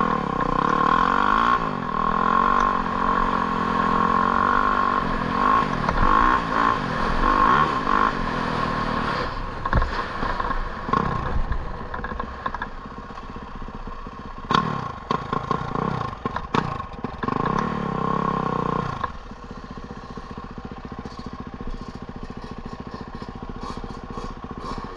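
Engine running with repeated rises and falls in pitch as it is revved, for about the first three quarters, then settling to a steadier, quieter running sound.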